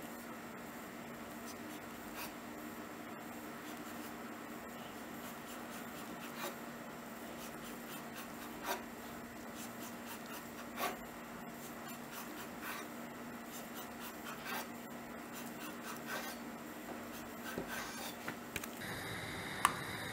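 Kitchen knife drawn through a rolled-out sheet of dough on a wooden board: soft scraping strokes with occasional sharp taps of the blade on the board. Near the end, dough pieces sizzle steadily in hot frying oil.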